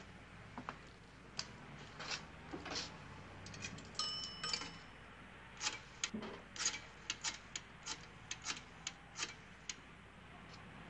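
A coin drops into a wall-mounted three-slot payphone about four seconds in, its coin bell giving a short ring. A run of quick, unevenly spaced clicks follows as the phone is dialled. A few soft knocks come before, over a low steady hum.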